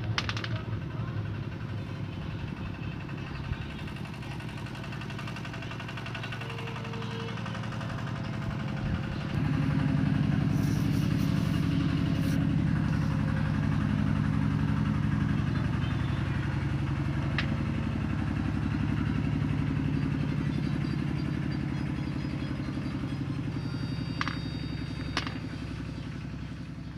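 An engine running steadily. It gets louder about nine and a half seconds in and eases off near the end, with a few short clicks over it.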